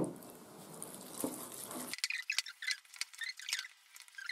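Minced pork and shrimp wonton filling being stirred in a glass bowl with chopsticks, making short, irregular wet squelches and small clicks, most of them from about halfway in.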